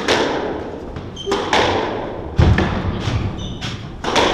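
Squash rally: the ball struck by racquets and smacking off the court walls, about five sharp hits roughly a second apart, each ringing in the enclosed court, with brief shoe squeaks on the wooden floor.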